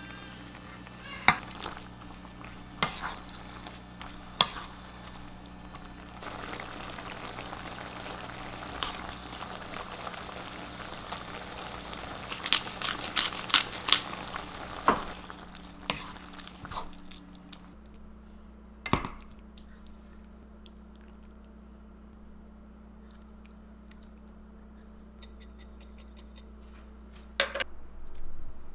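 Kitchen cooking sounds: dishes, a pan and utensils clink and knock now and then over a steady low hum. In the middle stretch there is a rush of liquid noise, with a quick run of clinks partway through it.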